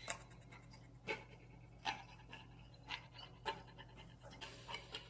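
A person chewing a mouthful of pan-fried shrimp dumpling, with soft wet mouth smacks about once a second over a low steady hum.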